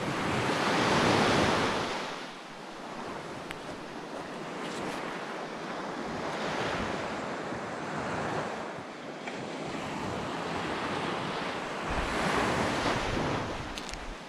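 Small sea waves breaking and washing up a sandy beach, the rush of surf rising and falling in swells every few seconds, loudest about a second in.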